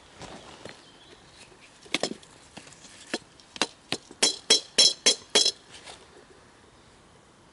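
A wooden stick tapping against a metal camp kettle: a few scattered knocks, then a quicker run of about five sharp, ringing taps between about four and five and a half seconds in.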